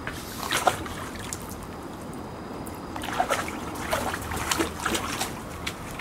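Golden retriever puppies wading in a shallow plastic tub of water, their paws sloshing and splashing, over a hose trickling into the tub. Splashes come about half a second in and in a busy run from about three to five seconds.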